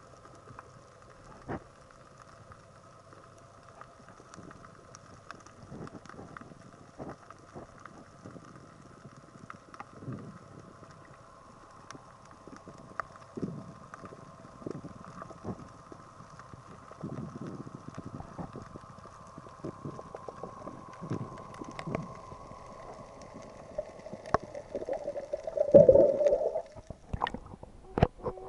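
Underwater sound heard by a snorkeler's camera below the surface: a faint, muffled steady hum with scattered clicks and soft low whooshes of moving water. Near the end it turns to a loud gurgling splash as the camera breaks the surface.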